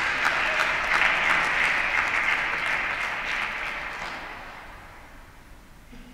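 Theatre audience applauding, the clapping strongest at first and then dying away about four to five seconds in.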